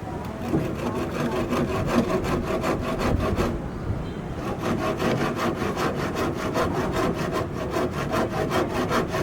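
Sawing with quick, even strokes, about five a second, with a brief pause a little over halfway through.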